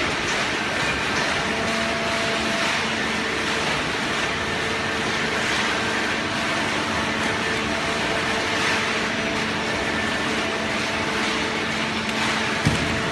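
Waste paper baler running steadily, a constant machine hum over a noisy wash. There is one short sharp knock near the end.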